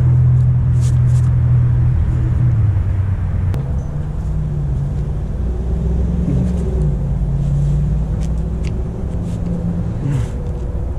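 An engine running, its low hum shifting up and down in pitch every few seconds, with faint clicks and scrapes from a plastic gas-pipe coupling being handled and pushed onto the pipe.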